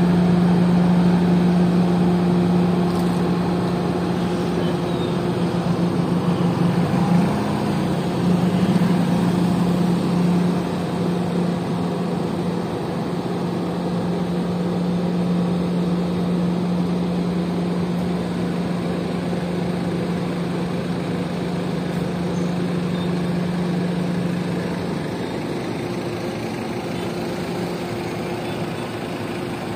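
Wirtgen W100H cold milling machine at work: its diesel engine runs with a steady low drone under a continuous even noise from the milling drum and loading conveyor. The engine note wavers briefly about a quarter of the way through.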